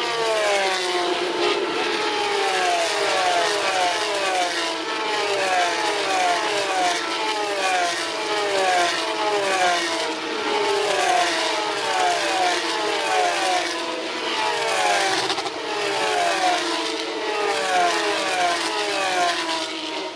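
A field of Formula 3 cars' naturally aspirated 3.4-litre Mecachrome V6 engines running at high revs, one car after another, each engine note falling in pitch as it goes, overlapping continuously.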